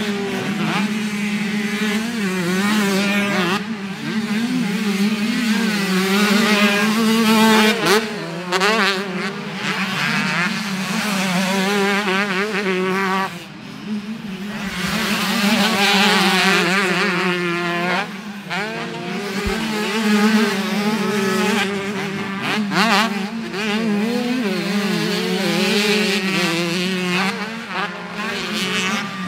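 125cc two-stroke motocross bike engines racing, their pitch sweeping up and down over and over as riders rev, shift and back off, often several bikes overlapping.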